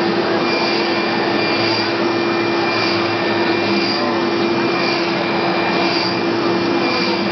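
UV flatbed printer printing: a loud, steady machine whir with a constant low hum, and a faint hiss that recurs about once a second.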